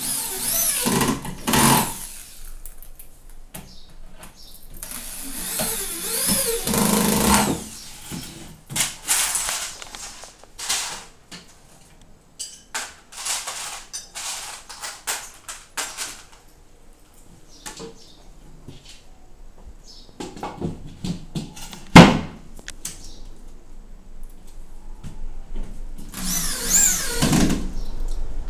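Corded electric drill driving screws into the panels of a flat-pack kitchen cabinet in several short runs, its motor speeding up and slowing under the trigger, with knocks from handling the panels and one sharp loud knock about two-thirds of the way through.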